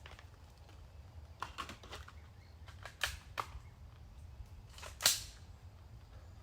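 A string of gunshots, sharp cracks spaced unevenly, with the loudest one about five seconds in.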